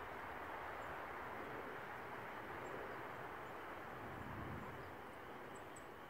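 Steady outdoor background noise with no distinct events, plus a few faint, very short high peeps, two of them close together near the end.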